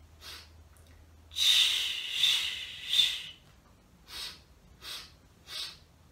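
A woman's deliberate breathing in a three-count pattern: one long exhale pushed out in three pulses, then three short, separate inhales near the end.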